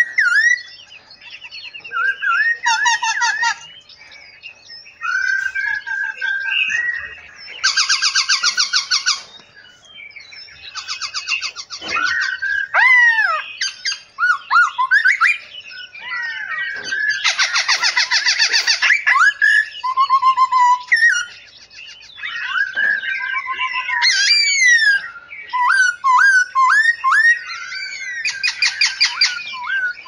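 Caged songbirds in an aviary calling and singing over one another: varied whistled notes and sliding calls, broken by loud, fast rattling trills about eight seconds in, from about 17 to 19 seconds, and again near the end.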